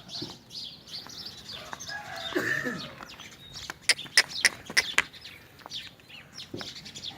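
Farmyard birds: small birds chirping repeatedly and a chicken clucking, with a quick run of sharp clicking notes near the middle.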